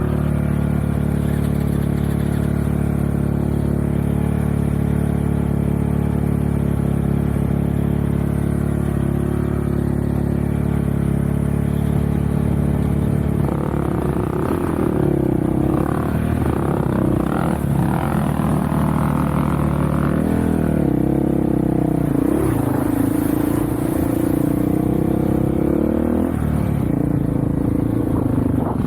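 Off-road vehicle engine running at a steady speed for about the first half, then revving up and down with its pitch rising and falling as it is ridden.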